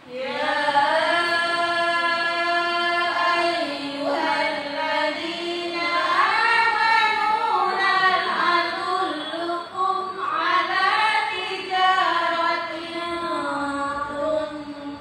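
Melodic chanting in the style of Quran recitation: a voice holds long, wavering, ornamented notes, with no instruments. It starts abruptly.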